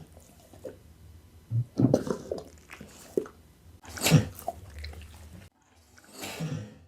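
Pit bull chewing raw food in irregular wet bouts, the loudest about four seconds in.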